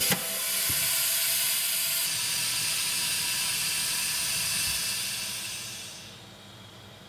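Vulcanizing press hissing steadily as it is switched on and its platens close on the aluminium mold frame, then fading out over the last couple of seconds.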